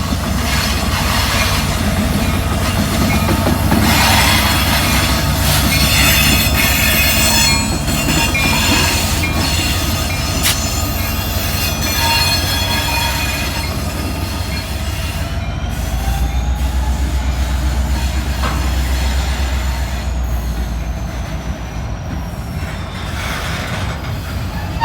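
CN train's railcar wheels squealing as they roll through the curved track of a wye, over a steady low rumble of the cars. The high squeal is made of several tones at once for the first half, then turns into slowly gliding pitches.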